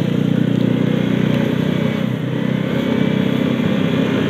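Motorcycle engine running steadily while riding along a road, with a continuous low rumble of engine and road noise.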